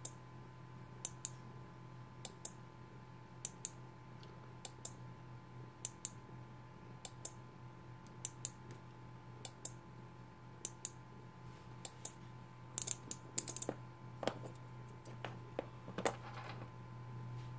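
Small relay module clicking in quick pairs about every second and a bit, two relays switching on and off under an ESP-01 running a double-blink program. Near the end a flurry of clicks and a couple of knocks as the board is handled.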